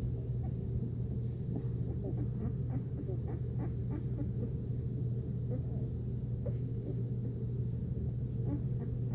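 Newborn Newfoundland puppies nursing: many small suckling clicks and tiny squeaks scattered throughout, over a steady low hum and a faint high whine in the room.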